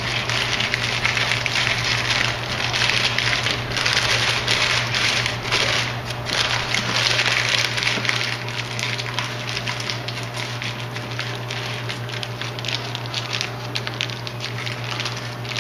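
Parchment paper crinkling and crackling continuously as it is folded and crimped by hand, with a steady low hum underneath.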